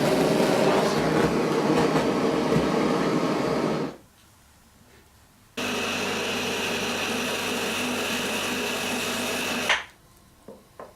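An electric power tool working in two stretches. The first, louder and rougher, stops abruptly about four seconds in. The second starts about a second and a half later, steadier with a high whine, and cuts off near the end, followed by a couple of light knocks.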